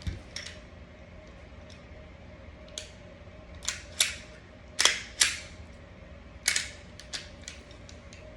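Sharp metallic clicks and clacks of a Smith & Wesson M&P 9mm pistol's parts being handled during cleaning. There are about ten at uneven intervals, the loudest in a cluster near the middle.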